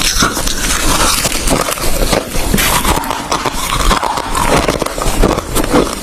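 Ice being chewed and crunched close to the microphone: a dense, continuous run of sharp cracks and crunches.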